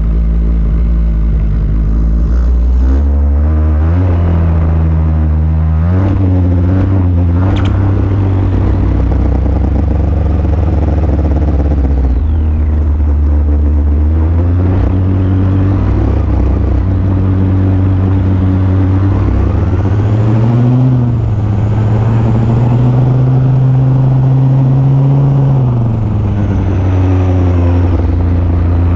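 Small string-trimmer (weedeater) engine fitted to an RC truck, running loudly and repeatedly speeding up and slowing down, with its pitch rising and falling several times and a longer high run about two-thirds of the way through.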